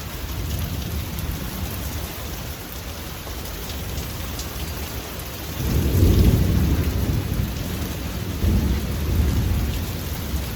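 Steady rain hiss with low rolling thunder that swells sharply a little past halfway and rises again a couple of seconds later.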